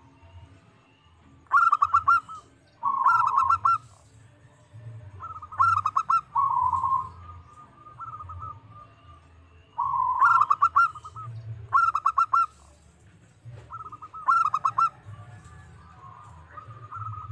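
Zebra dove (perkutut) cooing song: short phrases of rapid stuttering coos, some running into a longer drawn-out note, repeated about every two seconds.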